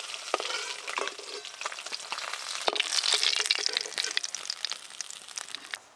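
Rohu fish pieces frying in hot oil in a wok: a steady sizzle with dense crackling, dying away toward the end.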